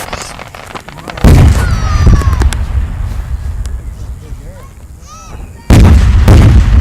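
Aerial fireworks going off: a deep boom about a second in, with a short falling tone after it, then another loud boom near the end followed by further bangs.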